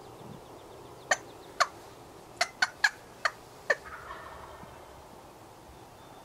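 Wild turkey calls: seven sharp, loud clucks at uneven spacing, followed at once by a fainter rattling gobble from the tom.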